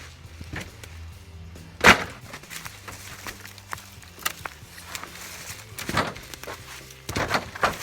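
Several sharp wooden knocks of firewood logs being handled and dropped, the loudest about two seconds in and a quick cluster near the end, over background music.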